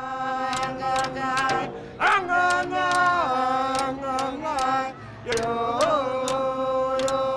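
Group of Alaska Native singers chanting long held notes to the steady beat of hoop frame drums, thin wide drums struck with long slender sticks, as accompaniment for traditional dancing.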